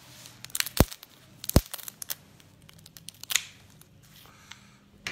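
Scissors snipping through a cooked crab's shell: two sharp cracks less than a second apart early on, then smaller snips and crackles, with another crack about three seconds in.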